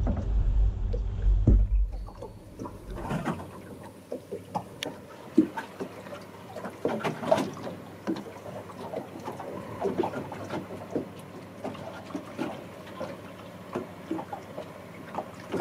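Wind buffeting the microphone for the first few seconds. From about three seconds in it gives way to scattered light clicks, knocks and small splashes of water lapping against a small boat's hull.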